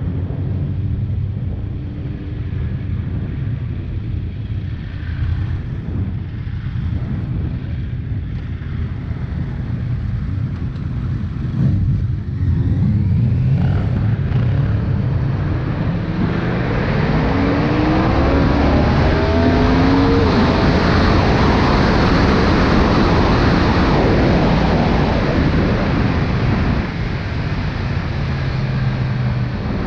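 Yamaha R1 inline-four engine running with a low rumble at slow pace. It gets louder about twelve seconds in as the bike accelerates, and its rising notes are then partly buried under heavy wind rush on a microphone with no wind protection.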